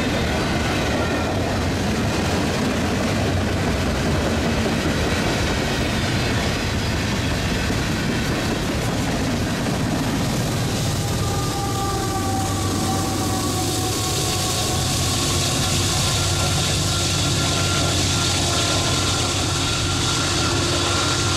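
Freight train rolling past: steel wheels of tank cars rumbling steadily on the rails. From about halfway through, the rear GE AC44CW diesel locomotive working as a pushing distributed power unit adds a steady engine drone with high whining tones that slide slightly lower.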